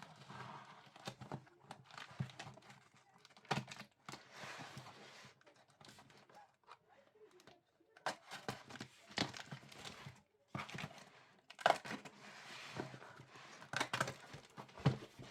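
A parcel being opened by hand: packaging tearing and crinkling, with scattered clicks and knocks as it is handled.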